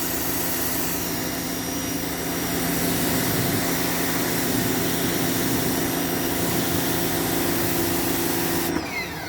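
Pressure washer running, its spray making a steady hiss over a steady motor hum, then cutting off suddenly near the end as the spray stops.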